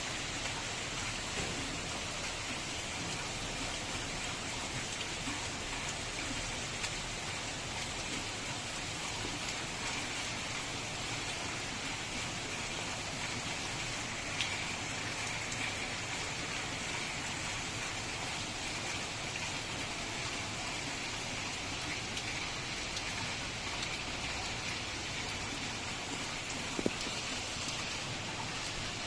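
Steady rain falling, an even hiss, with a few louder drops ticking now and then.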